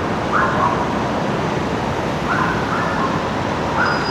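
Steady city traffic noise, with four short, high calls from an unseen animal scattered through it.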